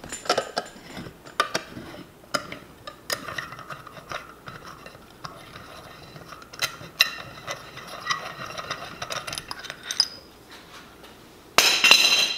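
Threaded screw clamp being unwound to release the compressed spring of a 4L60E 2-4 band shift servo: a run of small metallic clicks and ticks as the screw turns. Near the end there is a short, louder scrape.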